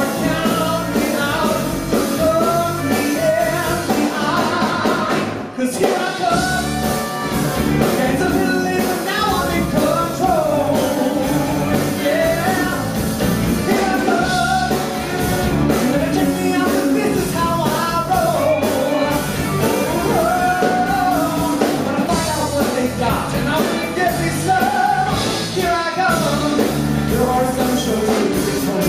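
A male vocalist singing a song into a microphone, backed by a live band with drums.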